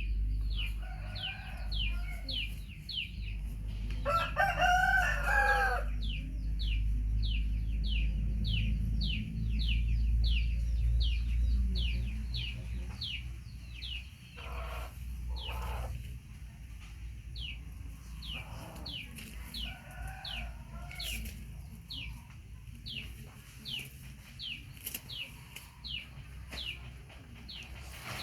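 Chickens: a steady run of short, high, falling peeps, about two a second, with a rooster crowing about four seconds in and again faintly around twenty seconds in. A low rumble runs under the first half.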